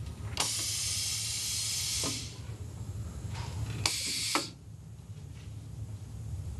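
Pneumatic robot arm working: a long hiss of air lasting about a second and a half, then a shorter hiss about four seconds in, over a steady low hum.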